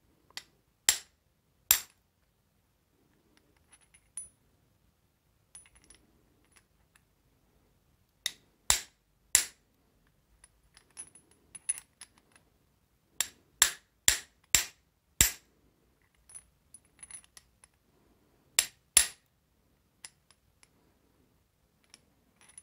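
Claw hammer tapping on a steel socket to press a drill chuck's retaining collet down over the split nut: sharp metallic taps in short groups of two to five, with faint clicks of metal parts being handled between them.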